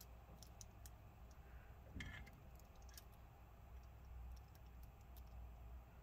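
Faint, scattered small clicks of screws being driven back into a metal hard-drive caddy with a small screwdriver, with a slightly louder knock about two seconds in.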